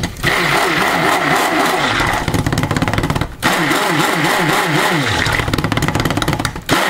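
Epica stick blender running in soap oils, mixing in the oatmeal and clay that sit at the bottom, its motor whine wavering up and down as it works. It cuts out briefly about three seconds in and again near the end.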